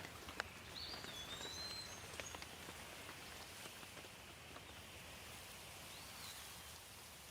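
Rain falling on leaves: a steady soft patter with scattered louder individual drops. A few short high chirps come about a second in and again near six seconds.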